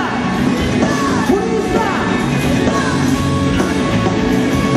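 Japanese funk-rock band playing live: drums and electric bass driving a steady beat under the lead singer's singing and shouted vocal lines.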